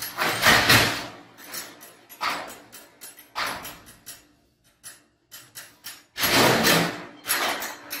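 Sections of a sectional garage door scraping and rattling as they are shoved by hand while the door is off its track. Two longer, louder scrapes of about a second each come near the start and about six seconds in, with a few shorter knocks between.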